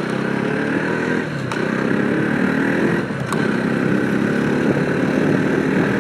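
Motorcycle engine accelerating while riding, its pitch rising through each gear and dropping at gear changes about a second and a half and three seconds in.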